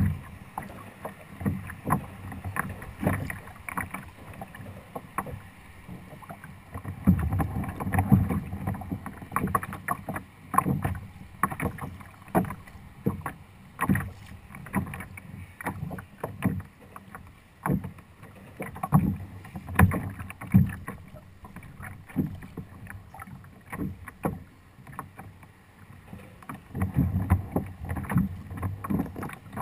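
Choppy water slapping and sloshing against the hull of a plastic Hobie fishing kayak, in irregular knocks and splashes with a few stretches of heavier low rumble.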